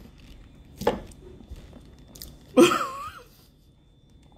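Wet mouth sounds of someone eating slimy raw sea cucumber (lomu): a sharp slurp about a second in and a few small clicks, then a short wordless vocal sound a little before three seconds.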